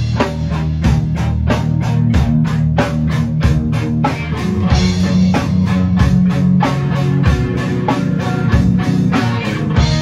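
Live rock band playing loud: electric guitar through Marshall amps, with bass and a drum kit keeping a fast, steady beat.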